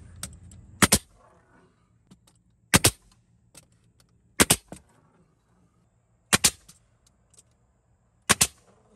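Cordless 15-gauge finish nailer driving stainless steel nails into wooden blocks: a sharp double crack with each shot, about six shots roughly two seconds apart, with faint clicks of handling between them.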